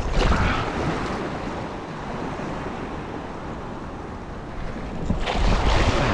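Small waves washing and splashing around the legs in shallow water, with wind buffeting the microphone. The wash swells louder at the start and again about five seconds in.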